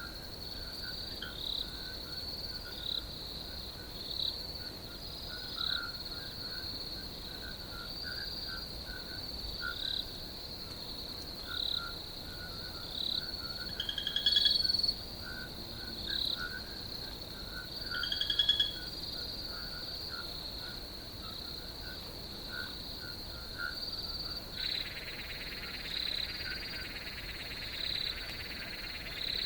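Night chorus of crickets and frogs: a steady high cricket trill under frogs calling again and again in short croaks, two of them louder in the middle. A second steady insect buzz joins about three quarters of the way through.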